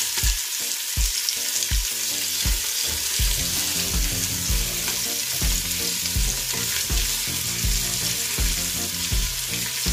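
Pork ribs sizzling steadily as they fry in olive oil in a stainless steel pot. A soft low thud repeats about every three-quarters of a second from about three seconds in.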